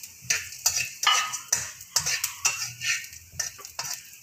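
Metal spatula scraping and knocking against a metal karahi, in quick irregular strokes about three a second, as melon seed kernels are stirred and fried.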